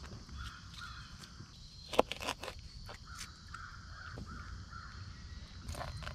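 Knife cutting up small bluegill on a plastic cutting board, with a few sharp knocks of the blade on the board, the loudest about two seconds in and more near the end. Crows cawing repeatedly in the background.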